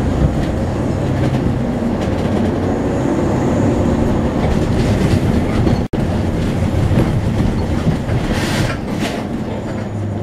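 Steady engine drone and road rumble heard inside a moving city bus, with rattling from the cabin. The sound breaks off for an instant about halfway through, and two short hisses come near the end.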